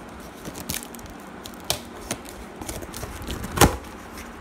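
Cardboard parcel box being cut open with scissors: crinkling of packing tape and cardboard with scattered sharp snips, the loudest about three and a half seconds in.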